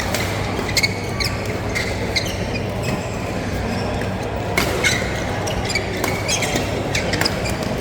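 Badminton doubles play in a hall: scattered sharp racket-on-shuttle hits and short shoe squeaks on the court floor, over a steady low hum.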